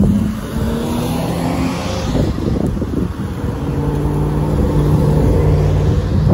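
A Cummins Westport L9N natural-gas inline-six in a 40-foot ElDorado Axess transit bus running under load as the bus turns and pulls away. Its engine note changes pitch in steps, over road rumble.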